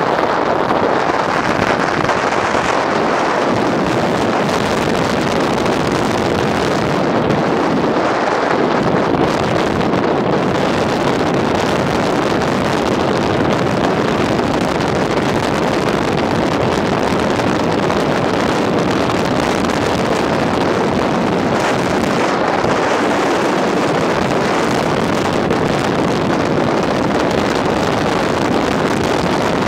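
Steady rush of wind across the microphone, mixed with road noise from a moving car.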